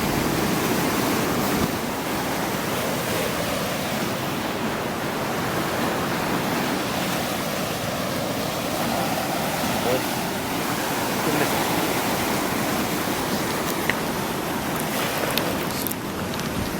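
Sea surf breaking and washing onto the beach, a steady wash of noise.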